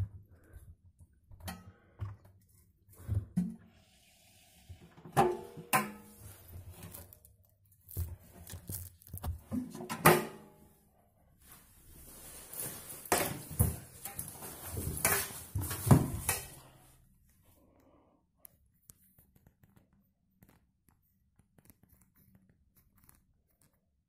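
Irregular knocks, thumps and fabric rustling as a hand works a jacket in the drum of a front-loading washing machine, with the phone being handled; the louder knocks come around five, ten and sixteen seconds in, and the noises stop about seventeen seconds in.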